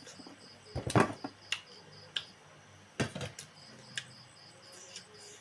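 Eating sounds from a pork-fat mukbang: a few sharp clicks and knocks, the loudest about a second in and again at three seconds. Crickets chirp steadily underneath in an even, regular pulse.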